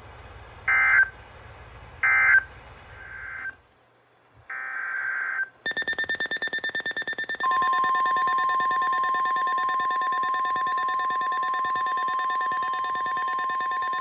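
Emergency Alert System tones: two short screeching digital data bursts close out the previous message, then a longer data burst opens the next alert. About six seconds in, a loud pulsing alert tone begins, and about a second and a half later a steady 1050 Hz weather radio warning tone joins it.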